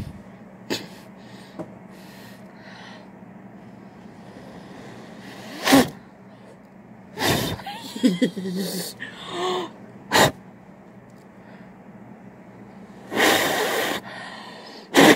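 A woman's nonspeech vocal sounds: a sudden loud burst about six seconds in, a few short voiced sounds after it, and a breathy rush about a second long near the end, with a sharp click between them.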